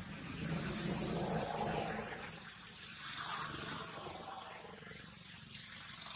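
Outdoor background hiss with no clear calls or voices. It swells about half a second in, eases, and swells again about three seconds in.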